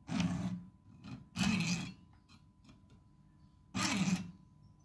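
Three separate scraping strokes of a thin metal tool against the knurled steel adjusting nut of an old pipe wrench, each lasting about half a second.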